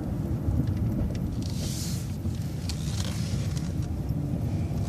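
City transit bus running, a steady low engine and road rumble, with a short hiss about a second and a half in.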